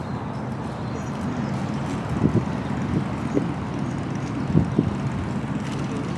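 A vehicle running steadily on the move, with wind buffeting the microphone.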